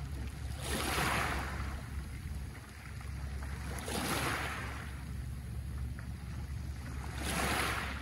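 Small waves breaking and washing up a pebble beach, three surges of hiss about three seconds apart, over a steady low rumble.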